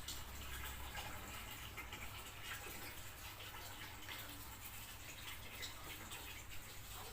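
Faint snoring breaths of a sleeping animal, roughly one every second and a half, over a steady hiss.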